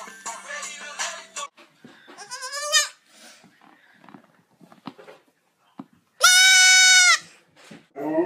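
An animal's cry: a short rising squeal, then about six seconds in one loud, high, steady cry lasting about a second. Near the end a husky starts to howl, rising in pitch.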